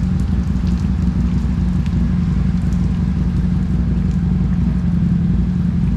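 Harley-Davidson Street 750's V-twin engine idling steadily after service for a misfire, which was traced to a faulty switch.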